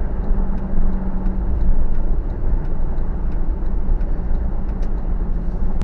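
Cabin noise inside a 2017 Jeep Wrangler Rubicon driving at about 45 mph: the 3.6-litre V6 running under a steady low hum, mixed with tyre and wind noise.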